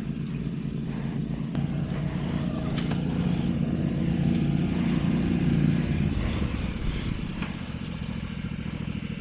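Riding lawn mower engine running, growing louder toward the middle and then easing off.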